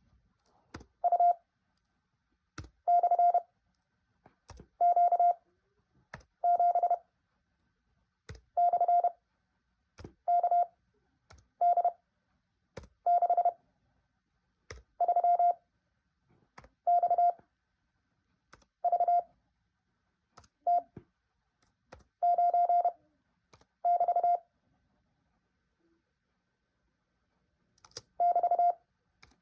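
Morse code practice tone: a steady mid-pitched beep keyed one character at a time, each character sent fast and followed by a pause of a second or two. This is Farnsworth spacing, a high character speed at a very slow effective speed.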